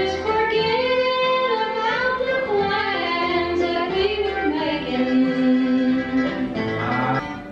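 Recorded show song for an animatronic bear: a woman's voice singing a slow country melody in long held notes, with plucked guitar accompaniment. The song drops away just before the end.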